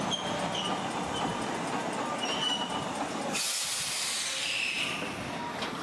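Hakodate city tram running on its rails with a steady rumble, then a loud hiss of released air that starts a little over three seconds in and lasts about a second and a half.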